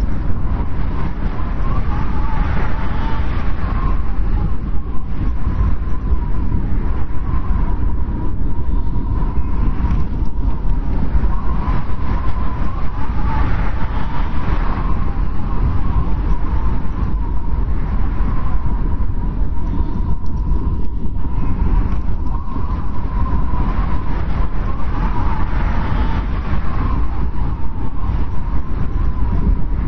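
Strong wind blowing steadily with a deep rumble, and a thin whistle that wavers around one pitch and swells and fades in gusts every few seconds.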